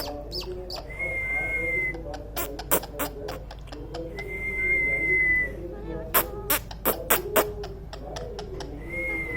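Ringneck parakeet whistling: three long, level whistled notes of about a second each, with many sharp clicks in between.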